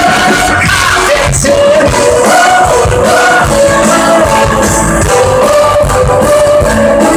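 Live concert music: a singer holding long melodic notes over a full band, recorded loud from within the audience.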